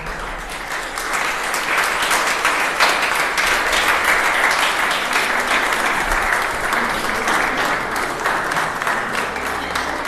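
A small audience applauding, many hands clapping at once, swelling in the first second and then holding steady.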